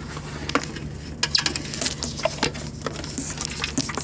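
Irregular clicks and taps of small parts and wiring being handled, over a steady low hum.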